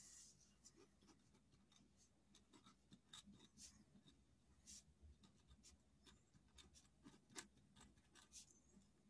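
Faint scratching of a pen on paper as words are written out by hand, in short irregular strokes.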